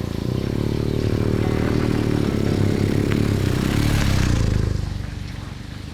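Motorcycle boxer-twin engine running, growing louder, then dropping off quickly about five seconds in.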